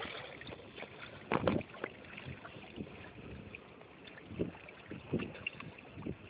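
Wind and handling noise on a phone camera's microphone, with a few soft knocks; the loudest knock comes about a second and a half in.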